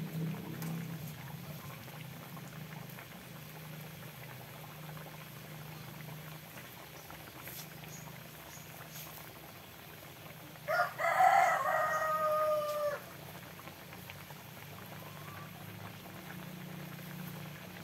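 A rooster crows once, about eleven seconds in: a short first note, then a held call of about two seconds. Under it is a steady low background hum.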